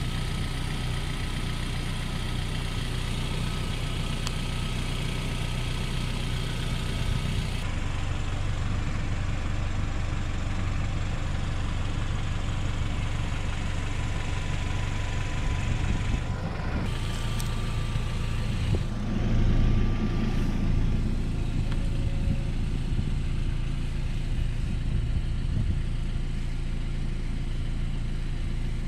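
Car engine idling steadily with a low hum, a little louder for a couple of seconds around two-thirds of the way through.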